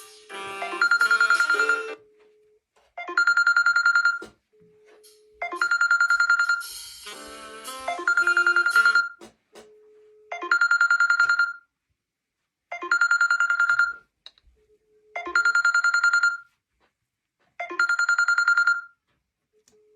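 Two smartphones, a Samsung Galaxy S7 and a Redmi, ringing with incoming calls at once. One plays a trilling, old-telephone-style ring about a second long, eight times at even intervals of about two and a half seconds. The other plays a lower melodic ringtone underneath.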